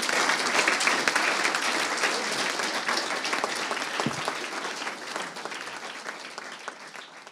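Audience applauding, many hands clapping, loudest at the start and slowly dying away toward the end.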